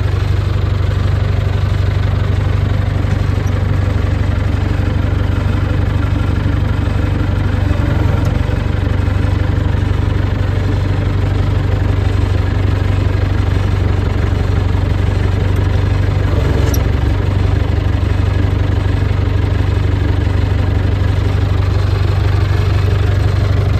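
1975 International 574 tractor engine idling steadily, heard from inside the cab.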